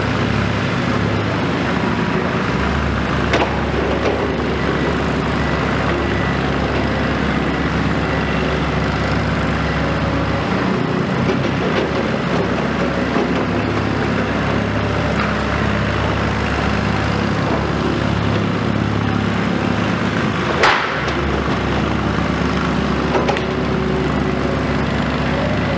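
Komatsu PC210 excavator's diesel engine running steadily under load, with a few short knocks; the loudest is a sharp knock about three-quarters of the way through.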